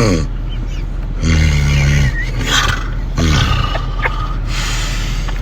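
A man snoring loudly, several rattling snores in a row, the longest and loudest about a second in. The rattle is likened to an F1 pit-stop wheel gun.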